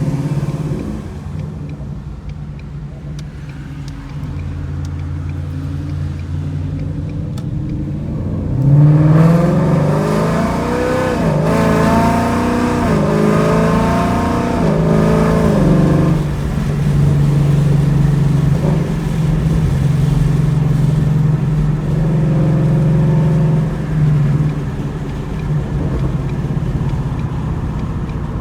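Ford Mustang GT's 5.0 V8 through long-tube headers and a Borla cat-back exhaust: a low rumble at first, then about nine seconds in it is opened up hard and gets much louder, its pitch climbing and dropping back several times as it shifts up, before settling into a steady cruising drone.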